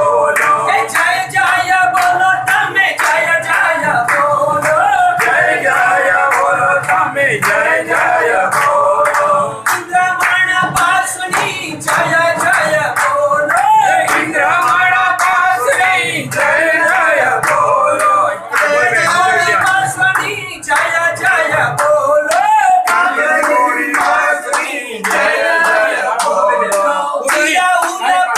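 Group of men and women singing a Jain devotional song together, clapping their hands along in rhythm.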